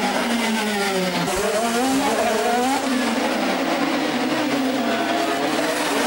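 Formula 3 racing cars' four-cylinder engines taking a tight hairpin, with more than one car heard at once. About a second in the engine note drops as a car brakes and downshifts, then it rises as the car accelerates away.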